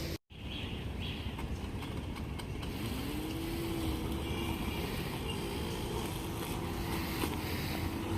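Robotic lawn mower running while cutting grass: a steady motor hum with a faint whine that rises in pitch about three seconds in and then holds. The sound drops out for a split second just after the start.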